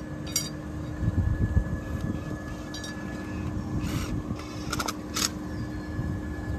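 Gusty wind buffeting the microphone over a steady machine hum, with a few short clicks and clinks about a second in and again around four to five seconds in.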